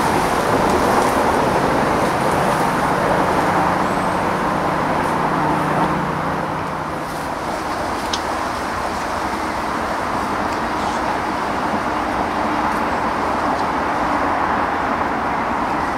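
Steady roar of distant road traffic, with a low engine hum that fades out about seven seconds in.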